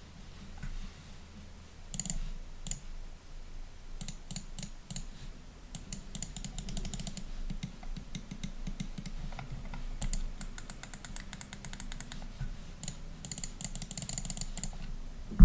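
Razer DeathAdder Essential gaming mouse clicking: a few single clicks, then several fast runs of clicks.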